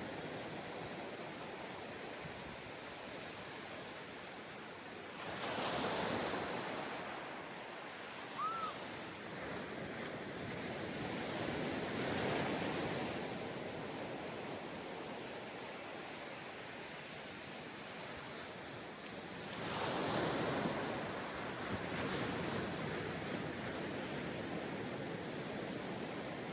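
Ocean waves breaking on a sandy beach, a steady wash of surf that swells three times as waves come in. A brief high chirp sounds once, about eight seconds in.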